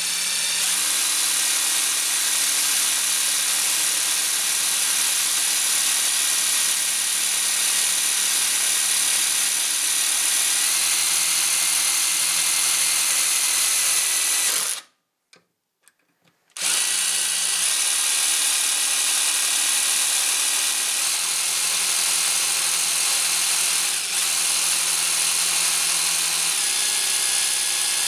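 Handheld electric drill running with a step bit, drilling into metal brackets clamped in a vise: a steady motor whine whose pitch shifts a few times as the speed changes. It cuts out for about two seconds in the middle, then starts again.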